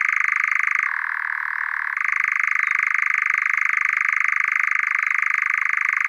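European nightjar churring: a continuous, rapid, dry trill that shifts down slightly in pitch for about a second, then returns to its first pitch.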